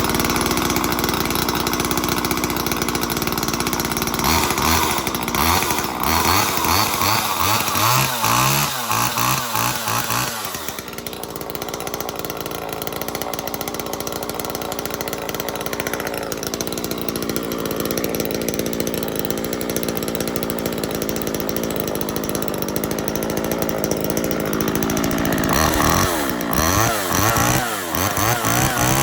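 1979 Homelite XL two-stroke chainsaw running after a cold start, just off choke. Its revs are blipped up and down, then fall away around the middle to a steadier run, and are blipped again near the end.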